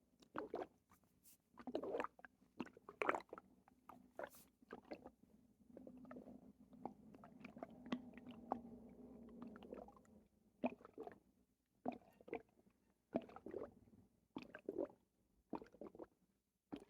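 Watery gurgling and squelching bowel sounds from a person's abdomen, in short irregular bursts with one longer drawn-out pitched gurgle in the middle, after a bowel movement.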